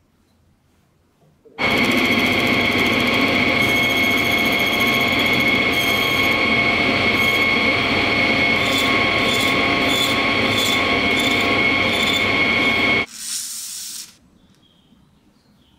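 Metal lathe running and turning a small metal part with a cutting tool: a steady machine whine with cutting noise that starts about a second and a half in, picks up a regular ticking in its second half, and cuts off suddenly near the end.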